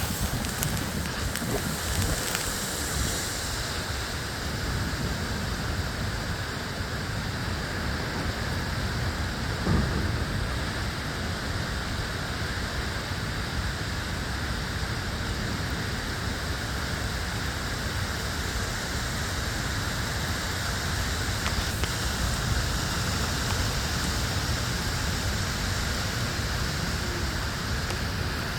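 Steady rain in a thunderstorm, with low thunder rumbling underneath and a brief louder peak about ten seconds in.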